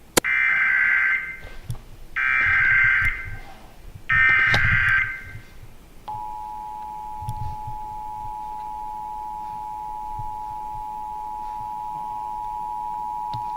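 Emergency Alert System test: three SAME header data bursts, each a harsh warbling screech about a second long, sounded about two seconds apart. About six seconds in, the steady two-tone EAS attention signal begins and holds unbroken.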